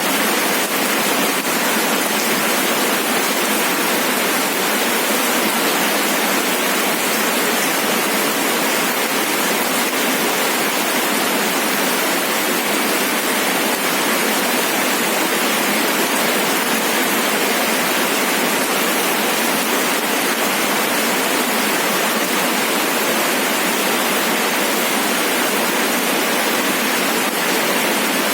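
Steady rain falling, an even unbroken hiss with no distinct drops or breaks.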